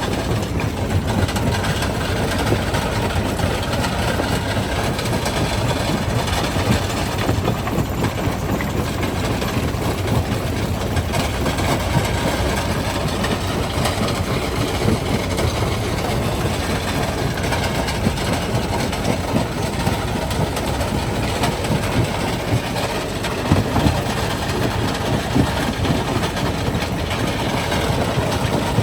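Primary jaw crusher running and crushing rock: a steady low rumble with constant irregular knocks and cracks of stone breaking in the jaws.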